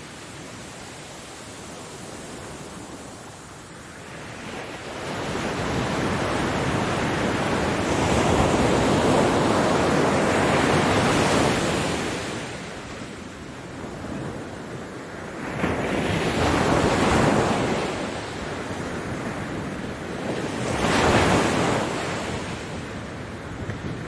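Ocean waves breaking on a beach, the surf rising and falling. A long swell of breaking water builds from the quiet wash early on and holds loud until about halfway, then two shorter crashes follow near the end.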